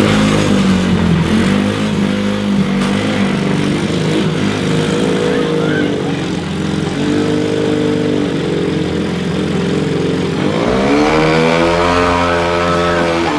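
Motorcycle engine revved hard and held at high revs, its rear wheel spinning in the pool water and throwing up a tall spray with a steady hiss. The revs waver throughout, drop, then climb again about ten and a half seconds in.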